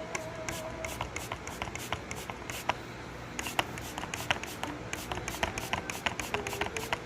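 A run of quick, irregular clicks and taps, several a second, over a low steady hum.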